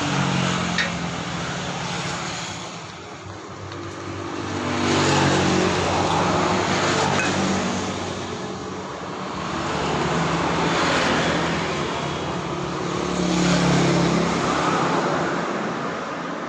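Road traffic: engine noise from several vehicles passing one after another, swelling and fading roughly every four seconds.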